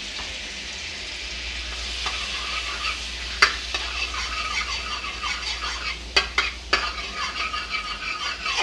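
Butter melting in a little hot oil, sizzling steadily in a steel kadhai while a steel spatula stirs it, with three sharp clinks of the spatula against the pan.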